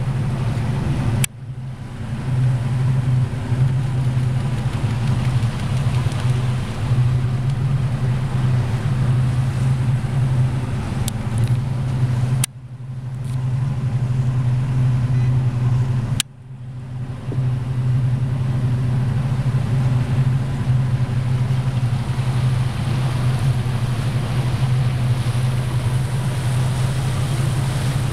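Motorboat engine running steadily at cruising speed, a low drone with the rush of wind and water over it. The sound cuts out suddenly about a second in and twice more around the middle, each time swelling back over about a second.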